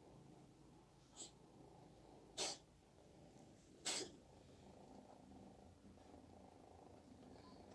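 A cat sneezing three times, short sharp sneezes about a second apart, the first one faint, with soft purring underneath. The owner wonders whether something is caught in its throat.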